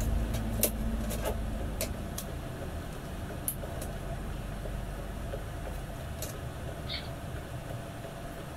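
Sharp, scattered clicks of hard plastic organizer panels and parts being handled and fitted together, over a steady low background rumble. A brief high squeak comes near the end.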